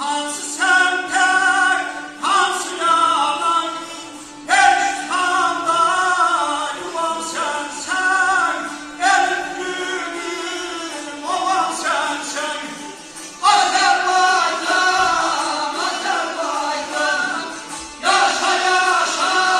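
Live folk music: men singing in long phrases over long-necked lutes, amplified through a hall's sound system.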